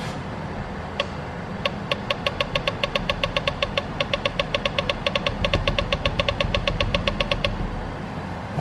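ATM touchscreen beeping with each key press: a quick run of short, even beeps, about six or seven a second, as the plus button is tapped over and over to raise the number of $5 bills. A steady low hum runs underneath.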